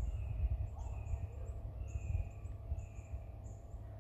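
Birds calling: a run of short high chirps, several a second, with slower, lower drawn-out notes between them, over a steady low rumble.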